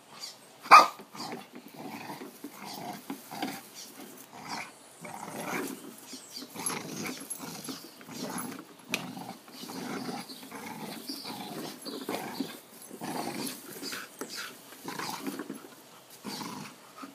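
Pit bull growling in short, irregular bursts while biting and tugging at a push lawn mower's wheels, with a sharp clack about a second in.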